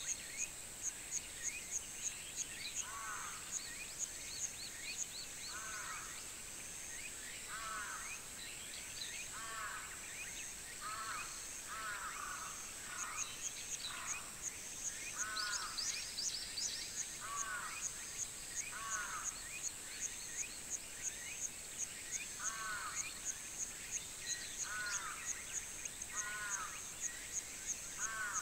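Summer countryside ambience: insects keep up a steady high-pitched buzz with fast, regular chirps about three a second, while a bird repeats a short call every second or two and other birds chirp faintly.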